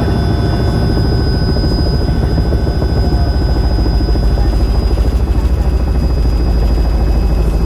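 Robinson R66 helicopter heard from inside its cockpit in flight: the rapid pulsing beat of the two-bladed main rotor under a steady high whine from the turbine drive.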